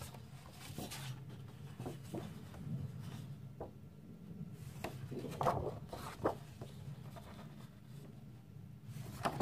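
Large 30×30 cm sheets of patterned scrapbooking paper being handled and turned over, rustling and sliding with scattered soft taps, a few louder rustles near the middle and the end. A low steady hum runs underneath.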